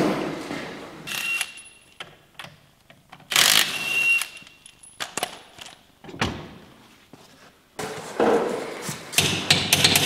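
Workshop work on a rally car: scattered clicks, knocks and clanks of hand tools and parts. Two short, noisier stretches come about three seconds in and near the end.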